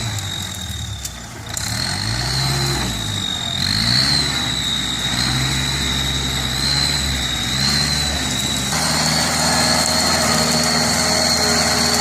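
Kubota L5018 tractor's diesel engine running. Its pitch dips and rises a few times in the first four seconds, then holds steady, with a high-pitched whine throughout.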